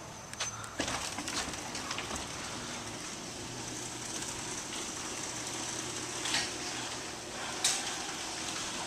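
LiftMaster 971LM garage door opener running as it raises a large garage door: a steady motor hum with a rattling, clattering door, a couple of clicks about a second in and two more knocks near the end.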